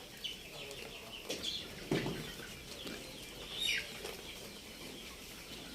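Chickens clucking faintly, with small birds chirping; one short call sweeps down in pitch near the end. There is a soft knock about two seconds in.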